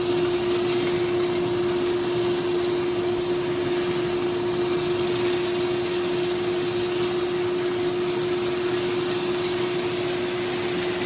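Steady whirring fan noise with a constant hum and a hiss, unchanging throughout.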